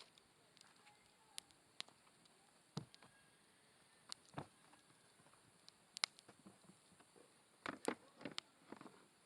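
Wood campfire crackling: irregular sharp pops and snaps over a faint hiss, with a quick cluster of pops about eight seconds in.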